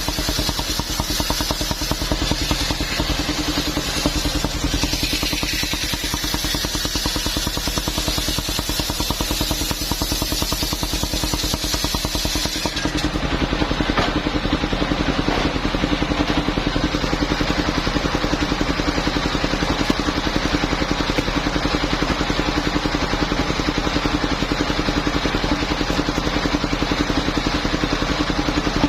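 Engine-driven mobile circular sawmill running steadily as it saws coconut palm trunk, with a constant engine hum under the blade's hiss. About thirteen seconds in, the high hiss drops away while the engine keeps running.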